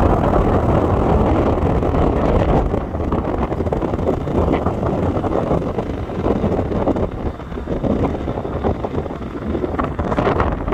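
A car driving, heard from inside the cabin: steady engine and road rumble, with gusty wind buffeting the microphone.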